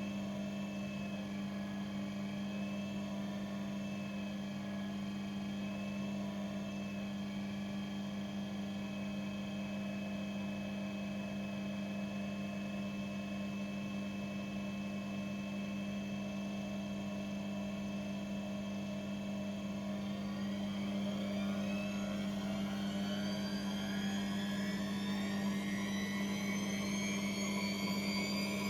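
Electric motor of a household appliance running with a steady hum. About two-thirds of the way through, a whine starts and rises steadily in pitch as the motor speeds up.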